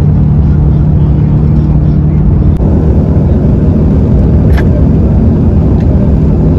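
Intercity bus engine running with a steady low drone. There is a click about two and a half seconds in, after which the hum changes.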